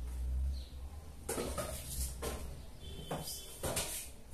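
Kitchenware being handled: pots and a large aluminium basin knocked and set down on the stove, about five separate clatters, with a brief high metallic ring about three seconds in and a low rumble at the start.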